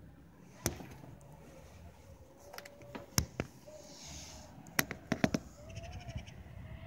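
Handling noise: a handful of sharp clicks and knocks, several in quick succession about five seconds in, as the phone and hand puppet bump against the window frame and metal balcony railing, over a faint low background rumble.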